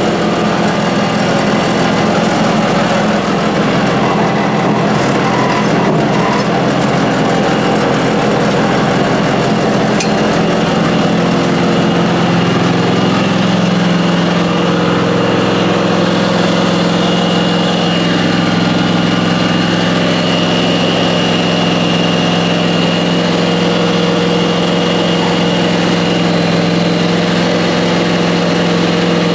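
John Deere X585 garden tractor's Kawasaki V-twin engine running steadily at idle, its pitch dropping slightly about twelve seconds in.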